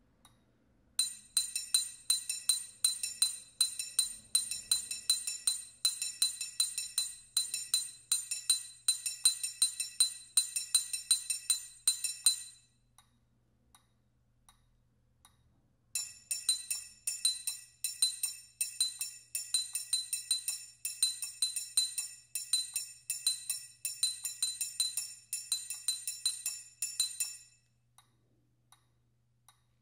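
Orchestral triangle struck rapidly with a metal beater on the lower part of the instrument, playing a snare-drum study as quick, articulated notes that ring together at several high, bell-like pitches. It plays two long passages, the first stopping about twelve seconds in and the second starting about four seconds later.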